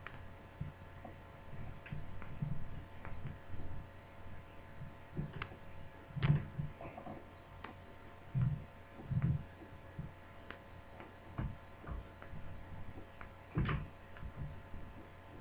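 Hands working on laptop lid parts during disassembly: irregular small clicks, taps and soft knocks of plastic parts and tools being handled, over a faint steady hum.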